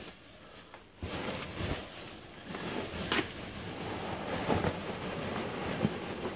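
Hands rummaging inside a cardboard delivery box: rustling of cardboard and packing, starting about a second in, with a few sharper knocks and crackles.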